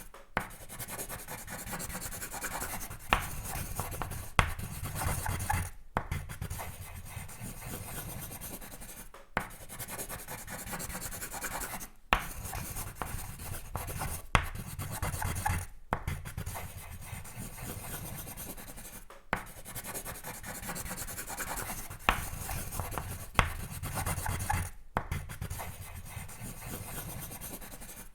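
Sketching on paper: continuous scratchy drawing strokes. There are short pauses every few seconds, and several sharp taps as the drawing tool is set down.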